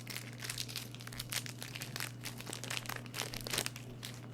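Foil booster-pack wrapper being crinkled and torn open, an irregular run of crackles.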